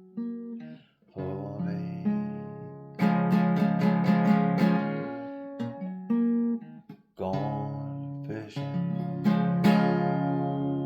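Acoustic guitar playing an instrumental passage of strummed chords without singing, with quick strums in a burst a few seconds in and again near the end, and two short breaks.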